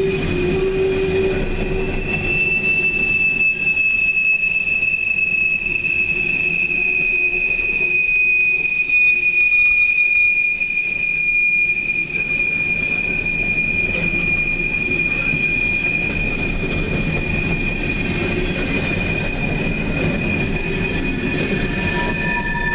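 Steel wheels of empty coal hopper cars squealing as they roll through a curve. A long, steady, high-pitched squeal that falls slightly in pitch, over the low rumble of the passing cars.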